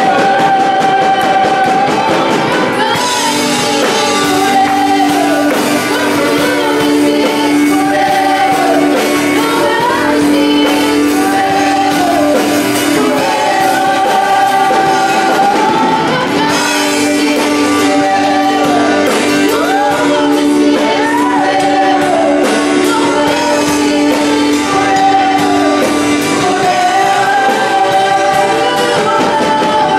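Live worship band playing a song: singers' voices with long held notes over electric and acoustic guitars, drums and keyboard.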